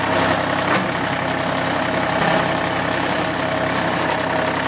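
John Deere compact tractor's three-cylinder diesel engine running steadily at idle.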